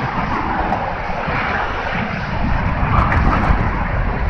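Wind rumbling on the microphone over a steady wash of road traffic from the bridge roadway beneath the walkway.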